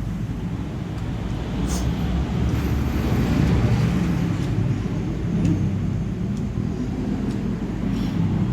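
Steady low rumble of motor-vehicle noise, with a few faint short clicks.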